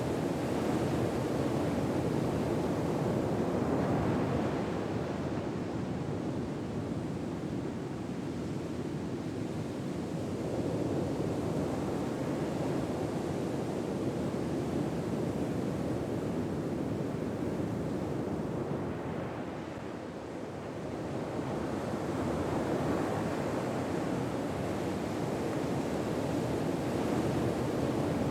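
Ocean waves washing in a steady, even rush, swelling and easing slowly, with a short lull about twenty seconds in before the surf builds again.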